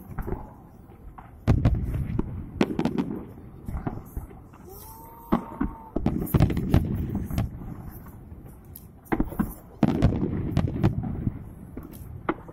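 Aerial fireworks shells bursting: repeated sharp bangs, several in quick clusters, with a low rumble between them.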